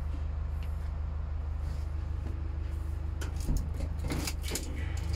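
Vehicle engine running steadily with a low hum. About three seconds in, a quick run of clunks and rattles follows for a second or so.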